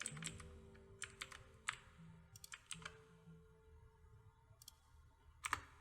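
Faint, irregular clicks of a computer keyboard and mouse as keyboard shortcuts are pressed, with a louder click about five and a half seconds in.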